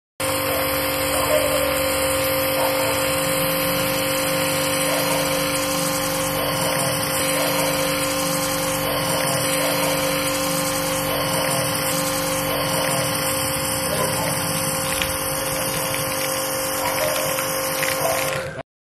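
Pressure washer running steadily while spraying thick foam from a foam lance, its motor and pump giving a constant hum with a steady whine over the hiss of the spray. It cuts off suddenly near the end.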